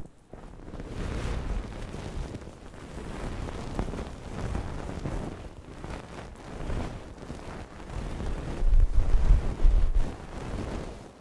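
A thin wooden stick scraping and rubbing directly on a microphone head, a steady scratchy rustle with a deep rumble from the contact on the microphone, louder and heavier for a stretch near the end.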